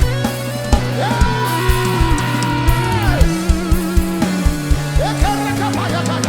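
A live worship band playing an instrumental passage: a steady kick drum about twice a second under sustained bass and chords, with a long held lead melody that bends and wavers.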